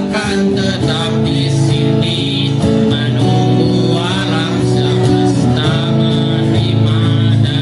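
A pop ballad performed live: guitar accompaniment with held chords, and a voice singing over it.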